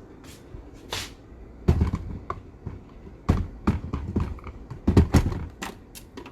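Irregular knocks and clunks of a blender jar and lid being handled and set in place, a dozen or so separate hits with no motor running.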